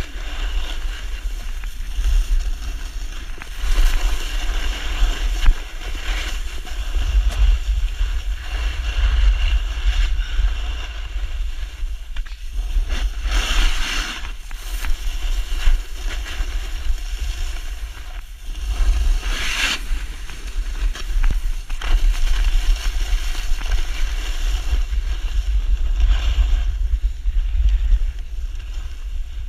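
Wind buffeting an action camera's microphone during a fast ski descent: a steady low rumble, with the hiss of skis scraping over packed snow that swells in short bursts during hard turns, loudest about halfway through and again about two-thirds of the way in.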